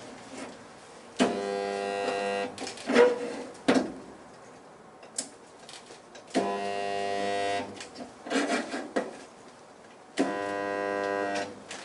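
Resistance spot welder buzzing three times, each weld a steady hum of about a second and a half, with clunks of the welder's arms clamping and releasing between welds. These are spot welds going into a Classic Mini's toe board panel.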